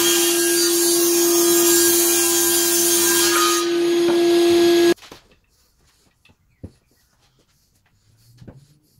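Table saw running and ripping a wooden strip against the fence: a loud, steady noise with a constant hum. It stops abruptly about five seconds in, leaving quiet with a few light knocks.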